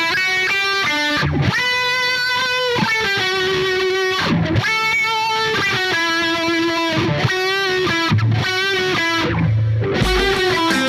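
Instrumental rock music: an electric guitar plays a slow melodic lead of held notes with vibrato over a backing track.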